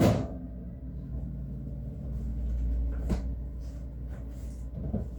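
A sharp knock as a package is set down or handled, then a lighter knock about three seconds later, over a steady low hum.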